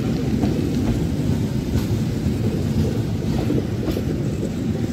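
KAI stainless-steel passenger coaches rolling slowly past at close range as the train runs in to stop at a station: a steady low rumble of wheels on the rails, with a few faint clicks.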